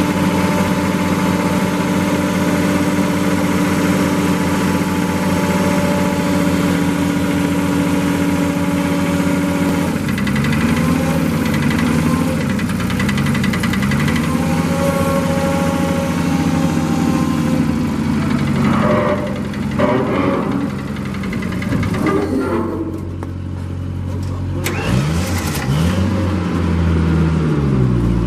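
Trailer-mounted industrial engine of a refuse trailer's hydraulic power unit running at a steady speed, then from about ten seconds in its pitch repeatedly dips and recovers as the engine is loaded and throttled.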